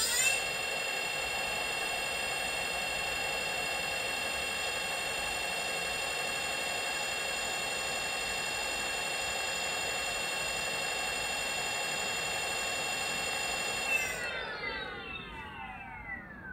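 Leaf 60V 2000W brushless rear hub motor spinning its 20-inch wheel unloaded at a steady high speed, giving a high whine of several tones. About fourteen seconds in, the whine falls steadily in pitch as the wheel slows down.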